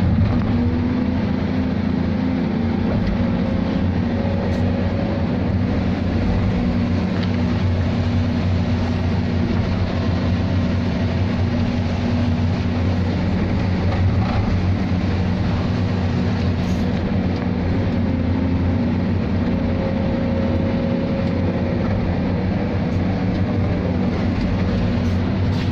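Boat's engine running with a steady low drone, heard from inside the wheelhouse, under a constant rush of water and wind as the boat ploughs through rough sea.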